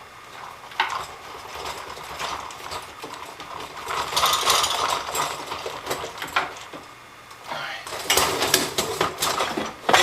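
Dishwasher parts being handled: irregular clattering and rattling, with a sharp knock about a second in and another at the end, and two busier stretches of rattling in the middle and near the end.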